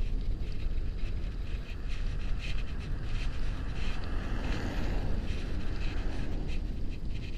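Wind rushing over the microphone of a bicycle-mounted camera while riding, with tyre and road noise; an oncoming car swells past about four to five seconds in.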